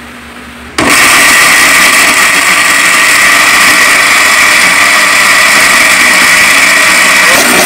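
Countertop blender switching on abruptly about a second in and running loud and steady at full speed, grinding chunks of lemongrass, garlic, ginger and onion in liquid into a purée.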